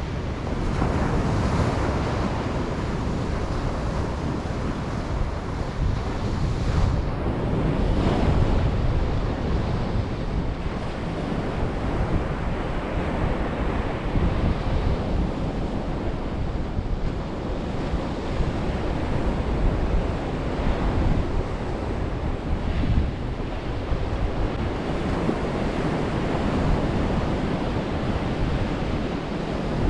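Ocean surf breaking and washing on a beach, a steady rushing that swells and eases over several seconds, with wind on the microphone.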